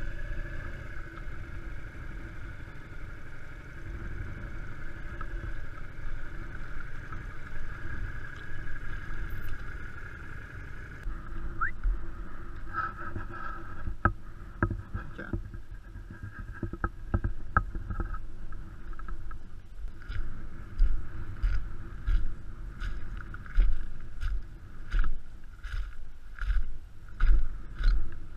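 A motorcycle's engine runs steadily at first. After about eleven seconds it gives way to scattered clicks, then footsteps crunching on loose river gravel, roughly one step every 0.7 s, growing louder near the end.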